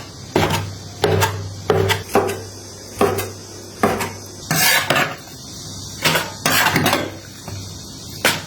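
Kitchen knife scoring pork intestines on a cutting board: a dozen or so irregular knocks of the blade striking the board, a couple of them drawn out longer.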